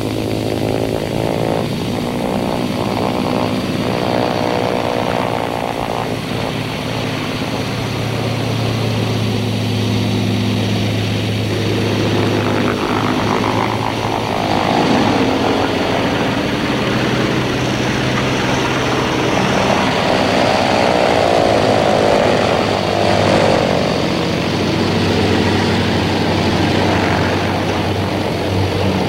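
The four radial engines of a B-17 Flying Fortress running as the bomber taxis in, their pitch rising and falling several times with the throttle over a steady low drone.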